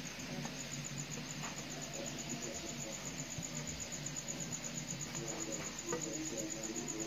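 Boiled rice being tipped from a steel plate into a hot wok of fried vegetables: a steady hiss under a faint high pulsing tone, with light clicks of the plate against the wok about a second and a half in and again around six seconds in.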